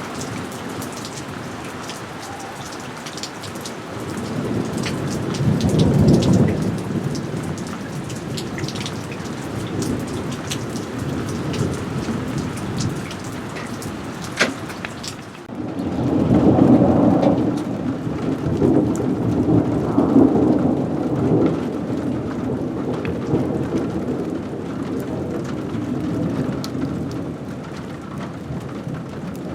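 Steady rain falling, with scattered drops striking close by. Thunder rolls twice: once about four seconds in, then a longer, louder rumble starting about sixteen seconds in that dies away over several seconds.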